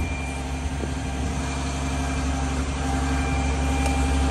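The truck's diesel engine and the Terex Hi-Ranger aerial lift's hydraulics running as the boom retracts and lowers the bucket: a steady low hum with a thin steady high tone over it, growing gradually louder, after a brief click at the start.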